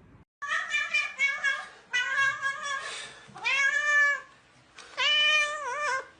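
Cat meowing: a quick run of short meows, then two long drawn-out meows, the last wavering in pitch near the end.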